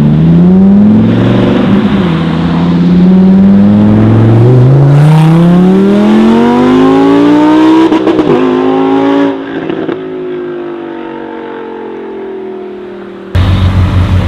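Supercar engine accelerating hard, its pitch climbing through the revs, with a drop at a gearshift about two seconds in and a crackle at another shift about eight seconds in. The sound then falls away to a quieter, slowly sagging engine tone. Near the end it cuts abruptly to a different car's engine, which pulses loudly.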